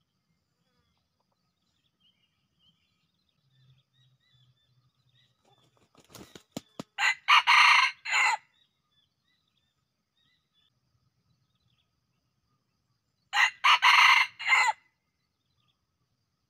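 A red junglefowl rooster crows twice, about six seconds apart. Each crow is short and broken into several parts. A few sharp clicks come just before the first crow.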